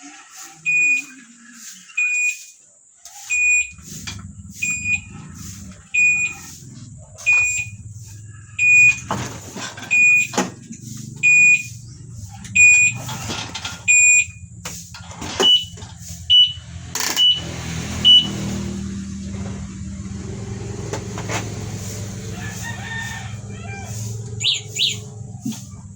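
Electronic e-bike alarm beeping a high single tone about once a second, then switching to a slightly higher beep for four beeps. A steady low hum runs under it from a few seconds in.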